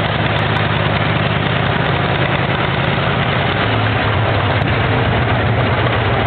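Antique tractor engine idling with a steady low rumble; the note grows stronger a little past halfway.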